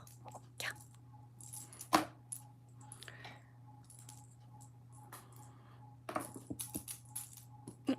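Light clicks and jingling rattles, scattered at first and coming thick and fast near the end, as a kitten plays, over a steady low hum.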